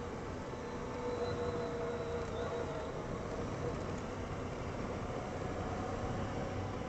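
Honda ATV engine running steadily while riding, with a faint whine that drifts slowly in pitch.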